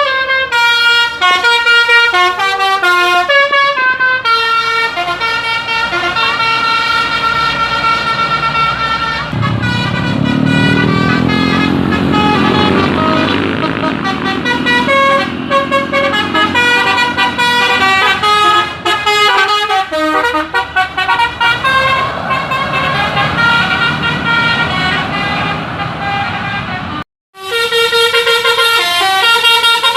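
Telolet basuri bus horn playing a melody of quick, changing horn notes. From about ten seconds in, a loud low rumble joins underneath. The sound drops out for a moment near the end before the horn melody starts again.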